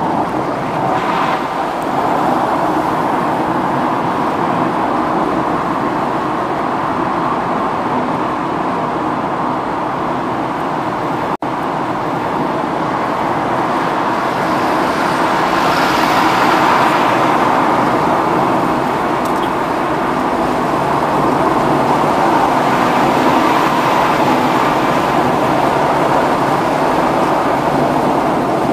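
Steady road and engine noise of a car driving at speed, heard from inside the cabin through a dashcam microphone. The noise drops out for an instant at an edit about 11 seconds in and grows a little louder in the second half.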